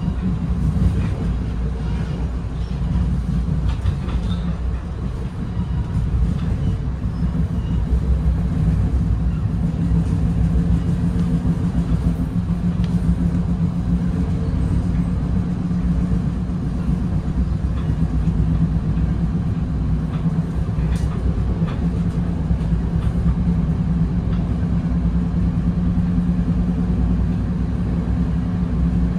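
Steady rumble of a Bombardier Comet IIM passenger coach running along the track, heard from inside the car, with a low hum and a few faint clicks.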